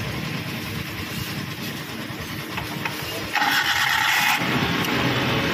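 Maruti Suzuki Alto's three-cylinder petrol engine being started: it catches and flares up about three seconds in, then settles into a fast idle. The high idle is the freshly cleaned throttle body's idle speed control valve now working properly, before the idle is set back to 600–800 rpm.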